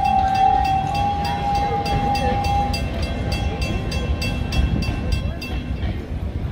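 Railroad crossing wig-wag signal's bell ringing at about three strikes a second over the low rumble of passenger cars rolling past; a steady ringing tone fades about three seconds in, and the strikes stop shortly before the end.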